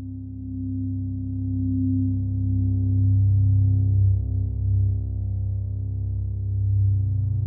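Electronic music made on hardware synthesizers: a sustained low synth drone of steady deep tones that swells in over the first few seconds.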